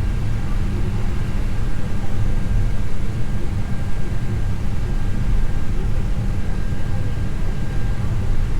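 Steady low rumble inside an Airbus A321 flight deck while taxiing, with the CFM56-5B engines at idle and the air conditioning running, plus a faint steady high tone.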